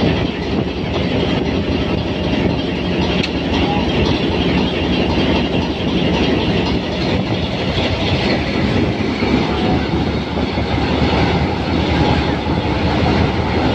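ALCO 12-251C4 V12 diesel engine of a Hitachi PHA-20 locomotive running steadily: a loud low rumble with fast, even pulsing.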